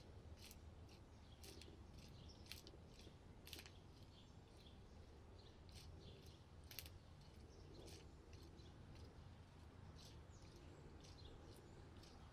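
Faint outdoor ambience: small birds giving short, irregular high chirps over a low steady rumble.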